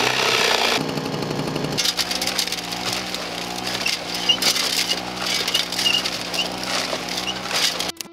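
Electric jigsaw cutting through a wooden board for about the first second, then a steady low drone with faint high chirps over it until just before the end.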